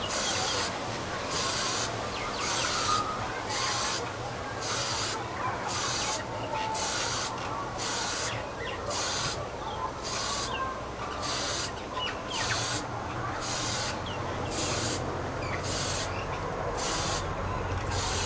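Aerosol spray-paint can spraying in short, evenly spaced bursts of hiss, a little over one a second, as light passes of paint are laid on.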